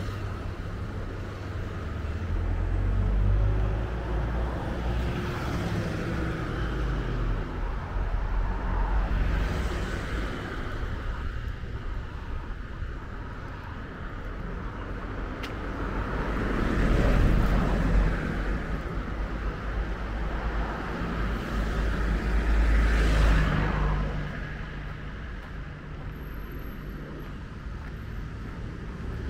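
Road traffic, with vehicles passing one after another over a steady low rumble. Each pass swells and fades, about four times.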